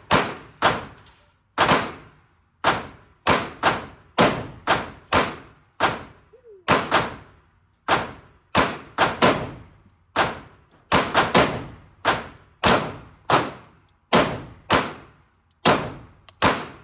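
Gunshots at an indoor shooting range, about thirty in quick irregular succession, some in fast pairs, each followed by a ringing echo off the range walls.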